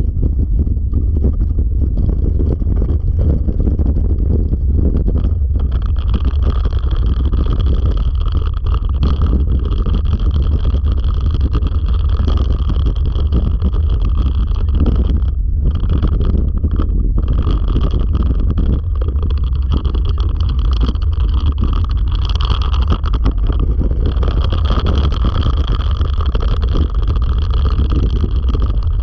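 Dryland dog rig rolling along a dirt trail behind a three-dog team: a loud, steady rumble of the wheels and the ride, mixed with wind on the microphone. A thin, steady higher tone joins about six seconds in.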